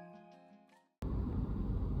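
Background music fades out, and about a second in a steady low rumble cuts in abruptly: the running and road noise of a vehicle driving.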